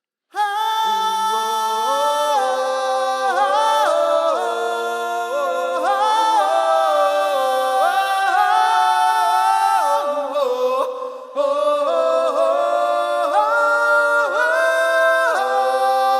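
Layered wordless vocal harmonies sung a cappella, holding chords that shift about once a second with no drums or bass, and a short dip about eleven seconds in.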